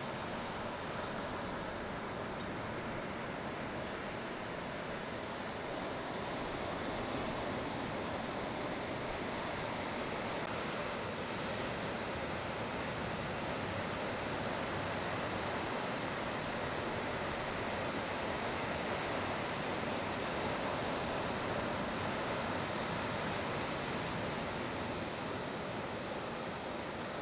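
Ocean surf breaking and washing, a steady, even rush of water noise.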